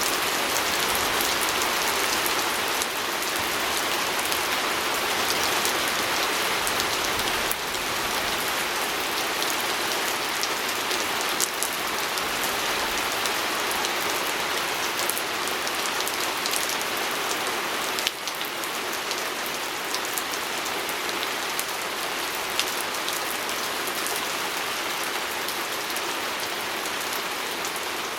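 Steady rain falling on a window pane, an even hiss with scattered individual drop ticks.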